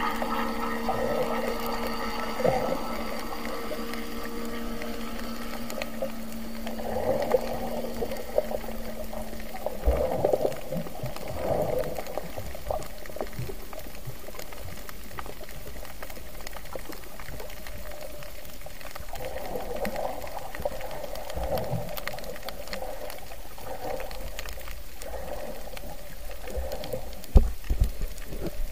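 Muffled underwater sound through an action camera's waterproof housing while snorkeling: water surging and bubbling in repeated bursts, with a steady hum of several tones that fades out in the first ten seconds. Sharp splashes and knocks near the end as the camera nears the surface.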